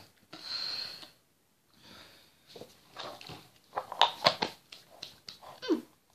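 A hissing breath in the first second, then a run of sharp clicks and knocks, loudest about four seconds in, from handling the webcam. A short falling vocal sound comes near the end.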